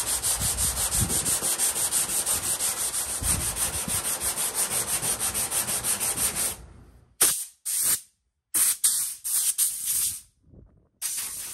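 Hand sanding block with sandpaper rubbed quickly back and forth over body filler on a steel truck hood, about five strokes a second, block-sanding the filler level. The steady strokes stop about six and a half seconds in, followed by a few short, separate rubbing sounds.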